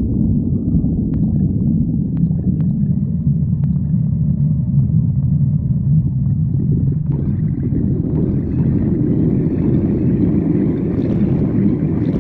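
Human stomach growling: a loud, continuous low rumble. Higher sounds join it about seven seconds in, and a few faint clicks come early on.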